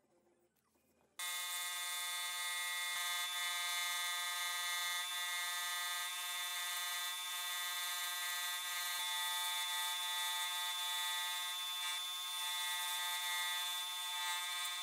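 Scroll saw running steadily and cutting through wood, a constant hum with a hiss. It starts suddenly about a second in.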